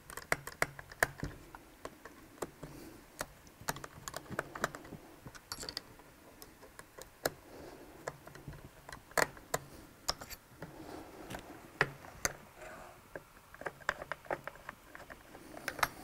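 Irregular sharp clicks and light metal taps from a hand tool tightening the screws that hold a new friction pack in an RS800 CVT transaxle.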